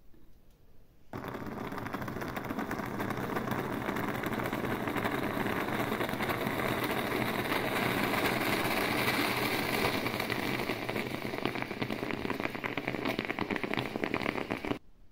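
Stainless-steel Vev Vigano moka pot sputtering and gurgling as brewed coffee spurts up into its upper chamber, a dense crackling hiss. It starts suddenly about a second in and cuts off abruptly near the end.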